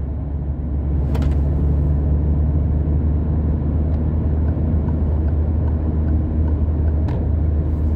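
Steady low rumble of a moving car heard from inside the cabin, with two faint short clicks, about a second in and about seven seconds in.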